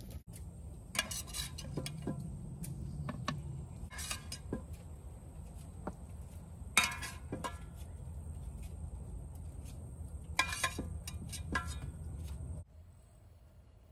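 Metal cooking utensils clinking against a pan, a handful of separate clinks and knocks over a low steady background, cut off sharply near the end.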